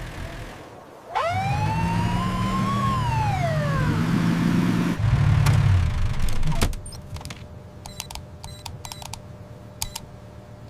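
A police car siren sounds one long wail, rising and then falling, over a vehicle engine's low rumble that swells near the middle. After the siren, a few faint sharp clicks follow.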